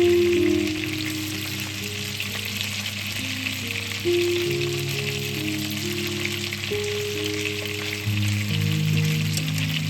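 Food sizzling as it fries in a pan, with background music of slow held notes over it.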